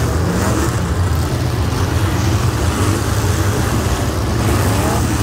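Demolition derby cars' engines running and revving in the arena, a loud steady low drone with rising and falling revs.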